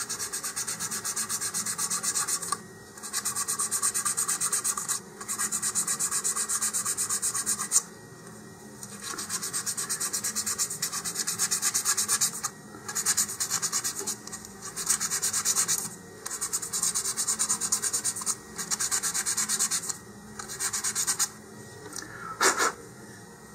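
Sanding sponge rubbed quickly back and forth on the edge of a laser-cut cardboard ring, taking off the nubs left by the laser cutting. It goes in runs of a few seconds with short pauses between.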